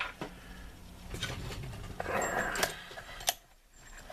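Handling noise: a few light clicks and knocks with a brief rustle, as small objects and a tray are picked up and set down.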